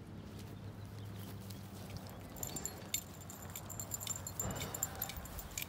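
Footsteps on pavement outdoors: a run of light clicks and shoe scuffs, over a faint low hum that fades after the first couple of seconds.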